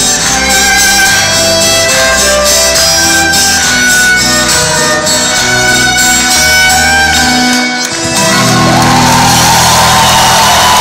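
Live rock band with violin playing an instrumental passage over bass and drums. About eight seconds in, it settles on a long held chord as crowd cheering and applause rise beneath it.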